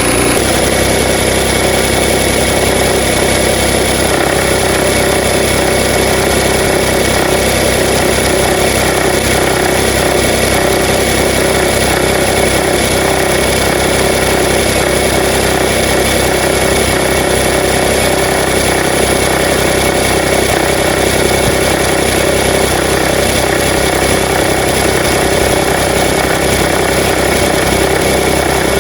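Nissan Note NISMO e-POWER's HR12 three-cylinder petrol engine running steadily at idle, with a slight change in its tone about four seconds in.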